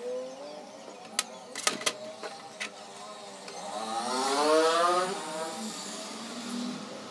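A few sharp metallic clicks as the parts of a turbo wastegate actuator are handled and fitted together. Behind them an engine runs, and it revs up and back down about four to five seconds in, the loudest sound here.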